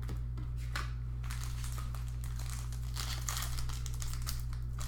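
Foil trading-card pack wrapper crinkling and being torn open by hand, in irregular crackles that grow busier about a second in, over a steady low hum.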